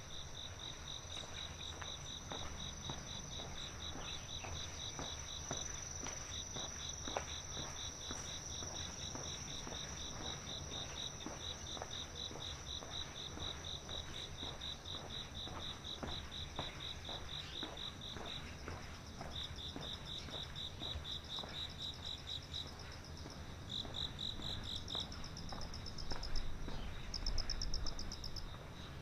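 Insects chirping in long rapid trills that pause briefly now and then, over a steady high buzz, with other, higher-pitched trills joining near the end.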